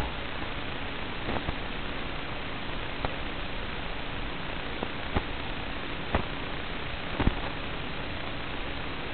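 Steady static hiss from an analog FPV video link's audio channel, with a handful of short clicks and crackles scattered through it.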